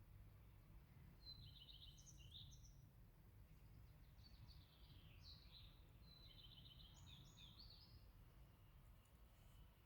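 Faint songbird song: three short phrases of quick chirps and trills, about a second and a half in, around five seconds and around seven seconds, over a steady low rumble.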